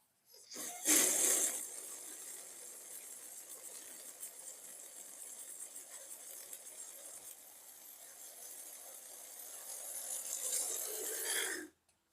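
Slime being handled: a loud sticky squish about a second in, then a steady fine crackling and squelching that builds and cuts off abruptly near the end.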